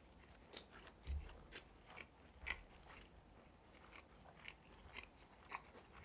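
People chewing food at a meal, heard as about ten soft, short mouth clicks and smacks at irregular intervals, with no talking.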